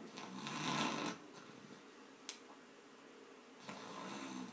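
A child's breathy, throaty vocalising or noisy breathing, heard twice, from a boy with breathing problems. A single sharp click comes a little over two seconds in.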